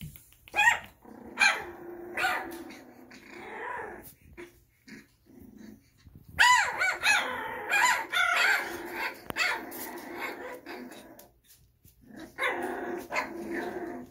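Litter of one-month-old Miniature Schnauzer puppies play-fighting, with high-pitched barking and yapping that comes in bursts, broken by brief lulls about five and twelve seconds in.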